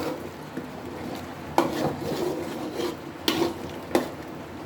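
Spoon stirring beef in a cooking pot, with three sharp clinks against the pot, the last two close together near the end.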